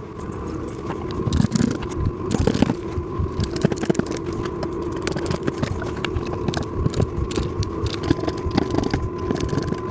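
Cordless drill/driver running steadily, driving cam bolts into the wooden table's end pieces, with small clicks and rattles throughout.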